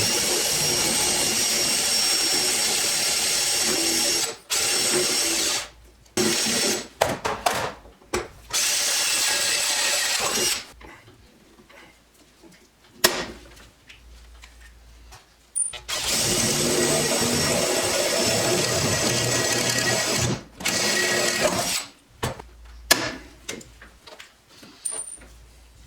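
Power drill boring holes through the metal of a tool box drawer for the pop rivets of new drawer slides, run in several spells of a few seconds each with short pauses between. A single sharp click comes in the quieter middle stretch.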